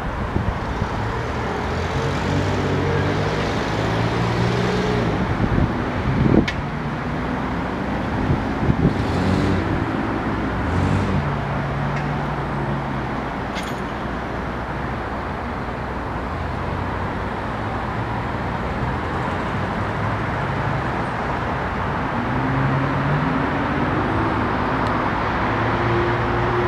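Steady road traffic noise, with the low hum of vehicle engines shifting as they pass, and a brief louder knock about six seconds in.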